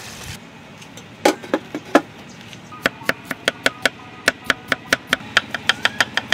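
Kitchen knife chopping a vegetable on a wooden chopping board: a few spaced chops about a second in, then a steady run of about five chops a second.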